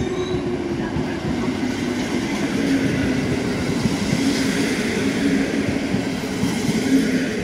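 Passenger coaches of a PKP Intercity train rolling past on the rails, a steady run of wheel-on-rail rolling noise with a low hum, as the last carriages of the departing train go by.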